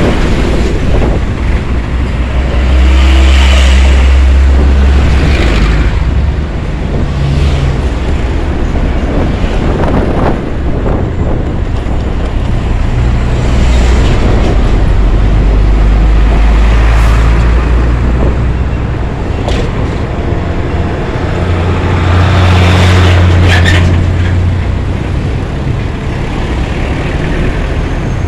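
Heavy traffic heard from a motor scooter squeezing between container trucks: deep diesel truck engines rumbling, swelling and fading as the big rigs are passed, over road and wind noise. A short hiss comes near the end.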